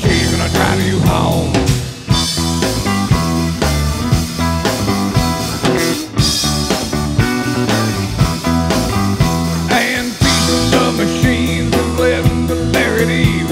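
Live rock band playing, with electric guitar lines bending in pitch over bass and drums.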